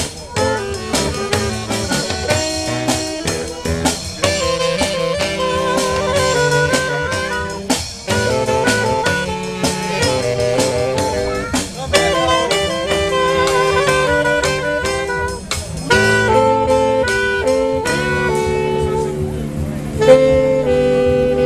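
Live band of saxophones and brass playing a lively tune over drums, ending in long held chords for the last few seconds.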